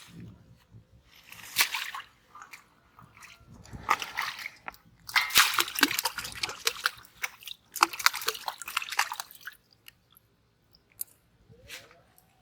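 Muddy water sloshing and splashing in irregular bursts, with squelching of wet mud.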